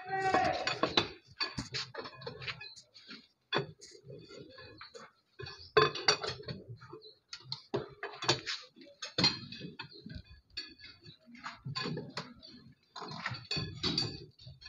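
Irregular metallic clinks and knocks, some close together and some a second or more apart.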